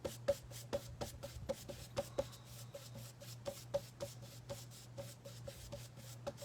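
Paintbrush dabbing and brushing acrylic paint on a flat canvas artboard: quick, regular taps, about four a second.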